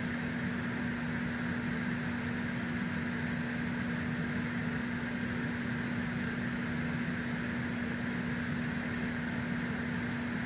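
Steady machine hum: a constant low tone over an even hiss, with no change or events.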